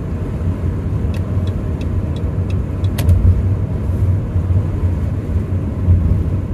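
Cabin noise of a 2018 Dodge Grand Caravan minivan driving on the road: a steady low rumble of tyres and engine. A short run of faint ticks comes about a second in, and a single sharper click about three seconds in.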